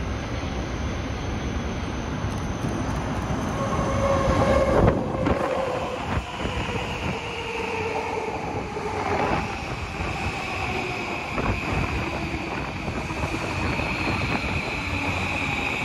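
JR East E235-series Yamanote Line electric train running in close alongside and slowing. Wheel and rail noise are loudest about five seconds in, under a motor whine whose tones slowly fall in pitch as the train slows, with a higher whine holding steady later.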